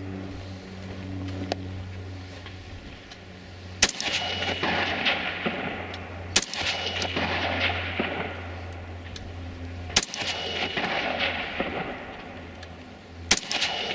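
Four rifle shots a few seconds apart, each a sharp crack followed by a long echo that dies away, over a steady low rumble.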